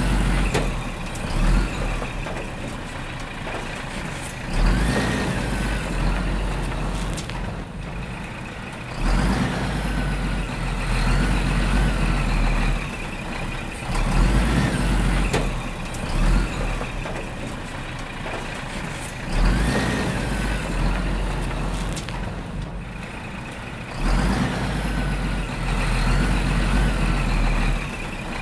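Heavy truck engine sound with hissing and whistling glides, swelling and fading in a cycle about every five seconds.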